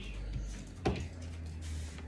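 One sharp tap on a tabletop about a second in, over a low steady hum.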